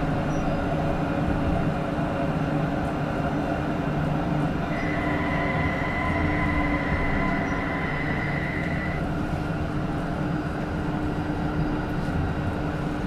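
Rhein-Neckar-Verkehr M8C-NF tram running between stops, heard from on board: a steady rumble of wheels and drive. A steady high whine sets in about five seconds in, stops about four seconds later, and comes back near the end.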